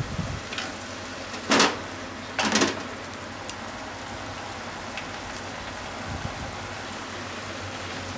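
Pork and onion with ginger sauce sizzling steadily in a frying pan, with two brief louder sounds about a second and a half and two and a half seconds in.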